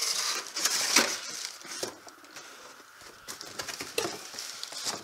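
Cardboard scraping and rustling as a boxed knife sharpener is slid out of a cardboard shipping box, loudest in the first second or so, followed by quieter handling with a few sharp knocks.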